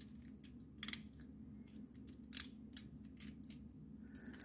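Faint clicks and rustles of fingers handling the insulated wires and plastic connector of a steering-wheel wiring harness, the two sharpest about a second in and past two seconds, over a steady low hum.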